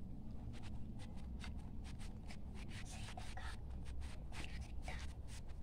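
Hands rolling a piece of homemade modelling clay into a thin strip on a notebook's paper cover: faint, irregular rubbing and light scratchy strokes over a low steady hum.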